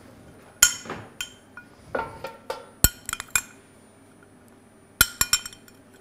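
A metal spoon clinking against a glass bowl and the rim of a copper pot as cubes of butter are scooped into the pot: a run of sharp, separate clinks and knocks with quiet gaps, in three small groups.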